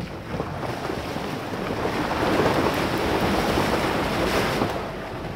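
Rushing, splashing noise of an off-road vehicle fording a shallow stream and climbing out onto the bank. It swells about two seconds in and drops back near the end.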